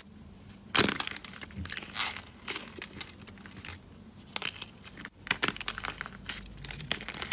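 Dried, hardened crust on slime cracking and flaking off as fingers squeeze and peel it, in irregular crisp crackles. Sharp cracks come about a second in, and a dense run of crackling comes near the end.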